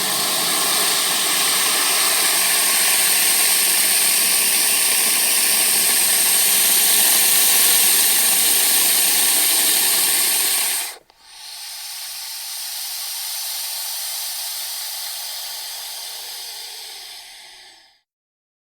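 Snake hissing: one long, loud hiss that cuts off about eleven seconds in, followed by a second, softer and thinner hiss that fades out shortly before the end.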